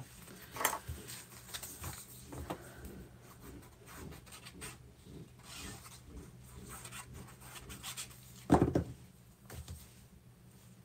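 Paper and card being handled on a desk: soft rustling and sliding, a liquid glue pen rubbed along a strip of patterned paper, and a single sharp thump about eight and a half seconds in.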